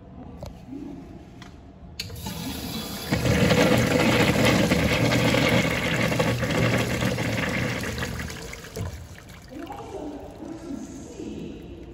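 A 1.0-gallon-per-flush Kohler Bardon urinal flushing: the water rush starts suddenly about two seconds in, is strongest for the next few seconds, then tapers off.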